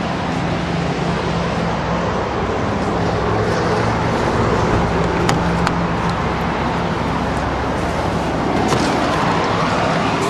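A car on the road: steady engine hum and tyre and road noise.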